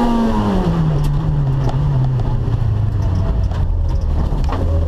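Rally car engine heard from inside the stripped cockpit, with its revs falling steadily for about four seconds as the driver lifts off, then holding low near the end. Road and tyre noise run under it, with a few light knocks.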